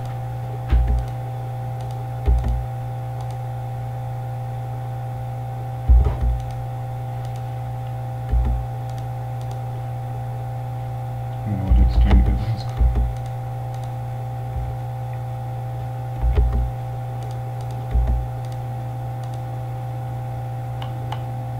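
Steady electrical hum, with short clicks and low thumps from a computer mouse and keyboard coming at irregular intervals every couple of seconds.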